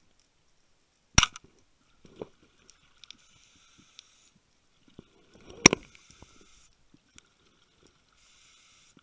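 Speargun fired underwater: a sharp crack about a second in, then a second, louder crack with a low rumble a few seconds later. Faint hissing of a scuba regulator comes and goes between them.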